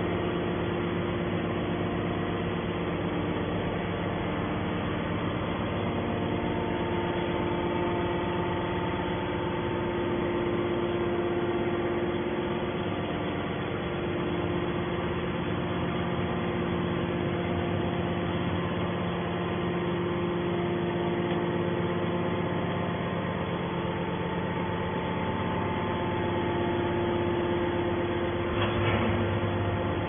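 Hydraulic scrap metal baler's power unit, an electric motor driving its hydraulic pump, running with a steady hum of several tones. A brief knock sounds near the end.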